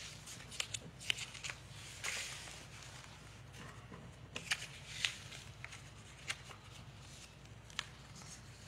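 Faint rustling and light clicks of paper being handled, as of pages or notes being turned, over a steady low hum.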